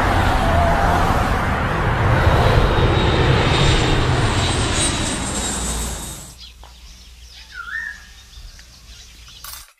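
Loud rushing noise of passing vehicles that dies down about six seconds in, followed by a quieter background with a single bird chirp near the end.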